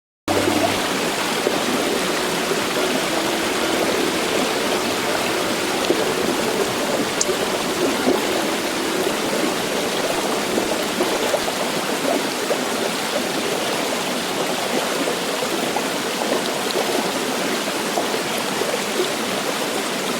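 Steady rushing water of a waterfall and its stream, cutting in suddenly just after the start.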